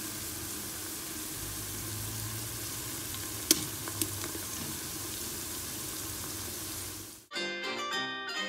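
Sliced onions sizzling steadily in oil in a steel pot, with two sharp knocks about halfway through as garlic paste is tipped in off a wooden spoon. Near the end the sizzling cuts off abruptly and plucked-string music begins.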